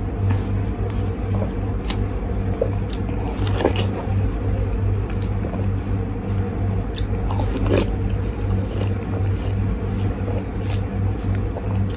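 Watermelon being bitten and chewed close to the microphone, irregular sharp mouth clicks over a steady low hum.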